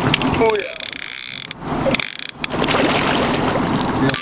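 Penn Fathom levelwind baitcasting reel buzzing and ratcheting as a hooked king salmon pulls line against the drag, with a wavering high-pitched buzz for about a second near the start and broken clicking after it.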